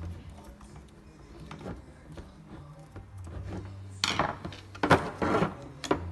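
Parts of an Audi Q7 power tailgate motor being handled and fitted back together: scattered light clicks and taps, then several louder scraping, rubbing sounds from about four seconds in.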